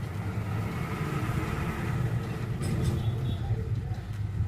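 Steady low background rumble, with a few light clicks a little past the middle.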